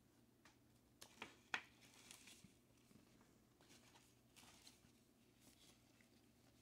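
Faint rustling and light clicks as a vinyl LP in its black inner sleeve is handled and slid against the gatefold jacket; the clearest clicks come about a second and a half in.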